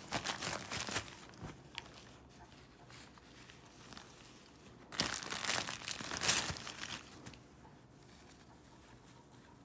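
Gift wrapping paper and tissue paper crinkling and rustling as dogs nose and tug through it, in bursts: loudest in the first second and again about five to seven seconds in.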